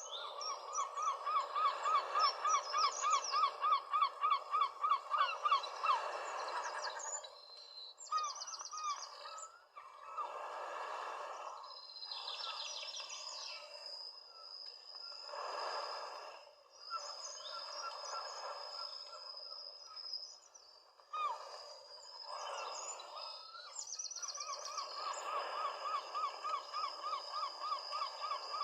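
Several birds calling: one gives a fast run of repeated notes, about five a second, at the start and again near the end, while others chirp higher in between.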